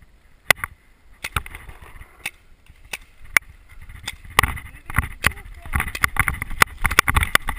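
A few sharp, isolated pops in the first half, then from about four and a half seconds in a paintball player running hard on grass: quick footsteps and gear jolting and rattling close to the microphone.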